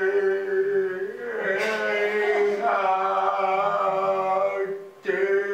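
A voice intoning long, steady chant-like notes on one pitch, with a short break about a second and a half in and a pause near the end.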